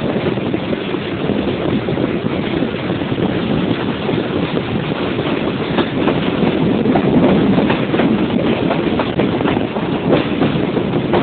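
Passenger train running, heard from an open window of a carriage: a steady rumble of wheels on the rails with scattered clicks from the rail joints, getting slightly louder about halfway through as the train picks up speed.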